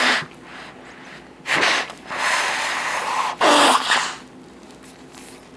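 A person blowing their nose hard into a paper tissue: four loud blasts, the third drawn out for about a second and the last the loudest.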